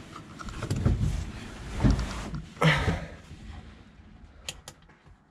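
Rustling and dull knocks of something being handled, then two sharp clicks about four and a half seconds in. No cooling fan runs.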